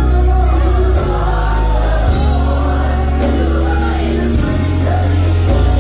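A gospel worship team of several singers on microphones singing together over band accompaniment with a deep bass line that changes note about once a second.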